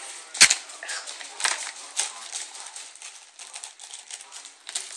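Paper backing being peeled off self-adhesive foam craft stickers: a run of small crackles and clicks, with one sharp knock about half a second in.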